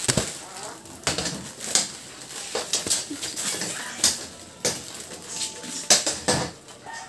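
Dishes and utensils clattering: irregular knocks and clinks, about nine of them, with the loudest near the end.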